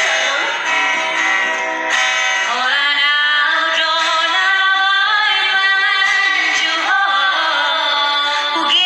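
Women singing a song to an acoustic guitar accompaniment.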